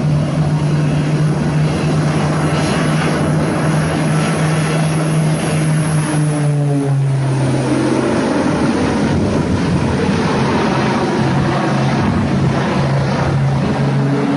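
Propeller aircraft engine drone, loud and steady, its pitch dropping a little about halfway through.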